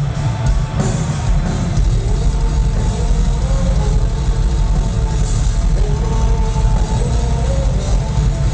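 Live heavy metal band playing loud, with heavy bass and drums.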